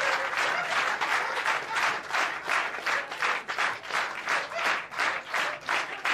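Theatre audience applauding. The scattered applause falls into rhythmic clapping in unison from about two seconds in, at roughly two to three claps a second.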